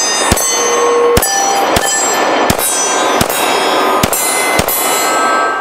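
Glock 45 9mm pistol fired seven times at a steady pace, about one shot every 0.7 seconds, each followed by steel target plates ringing from the hits.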